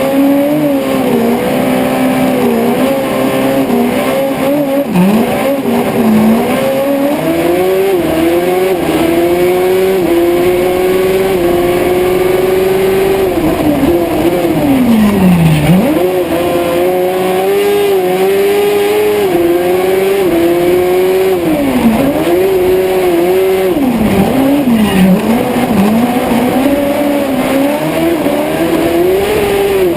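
Honda Hornet 600 inline-four motorcycle engine in a Piaggio Ape race prototype, heard on board at full attack. It revs up through the gears with a quick drop in pitch at each shift, falls deeply three times as it slows for corners, and climbs again each time.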